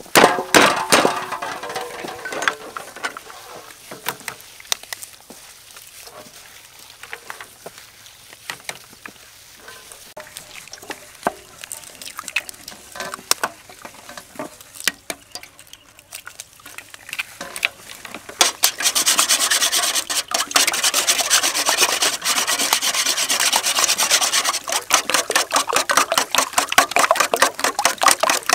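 Eggs being cracked against an aluminium bowl, with scattered light knocks and clicks. About two-thirds of the way in, a fast, steady run of strokes starts as the eggs are beaten with a whisk in the metal bowl.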